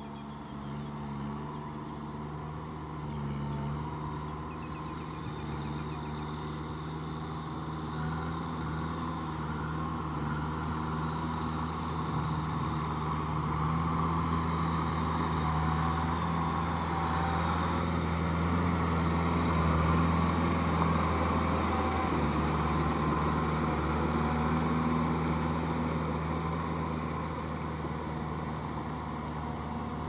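Kubota M6240SUH tractor's diesel engine running steadily as it pulls a rotary tiller through a flooded paddy field, growing louder as the tractor comes close, loudest about two-thirds of the way through, then easing slightly as it moves away.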